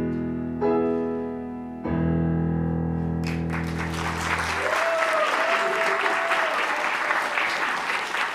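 Piano closing the song with its final chords, the last one held and dying away, as an audience breaks into applause about three seconds in; the applause continues to the end.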